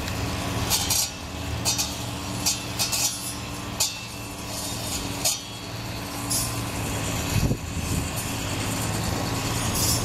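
Diesel engine of a crawler excavator running steadily as it crawls up a ship's loading ramp, a low even hum, with brief high-pitched clinks scattered through it.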